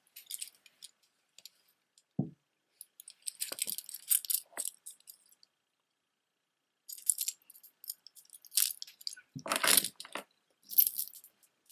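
Beaded jewelry clicking and jingling as it is handled, in scattered clusters with a pause of about two seconds in the middle and one louder clatter about two-thirds of the way through.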